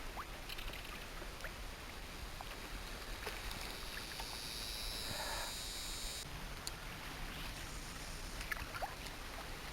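Quiet ambience on the water around a small skiff: light water lapping against the hull with wind, and a few faint clicks. A high hiss rises for a few seconds in the middle and cuts off suddenly.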